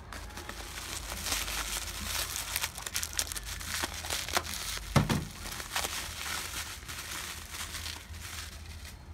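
Packaging being handled and crinkled during an unboxing: irregular crackling and rustling, with one louder thump about five seconds in.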